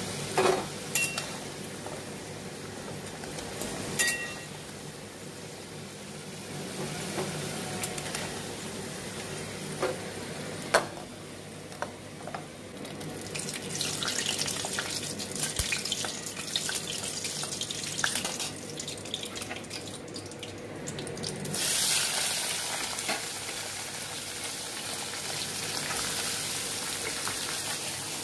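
Cut potatoes frying in hot oil in a metal pot: a steady sizzle, with a few sharp clinks of a metal spatula against the pot in the first part. The crackle grows denser about halfway through, and about three quarters of the way in the sizzle suddenly gets louder.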